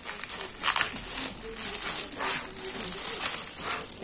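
Clear plastic wrapping crinkling and rustling in irregular crackles as it is pulled off a large plastic toy egg.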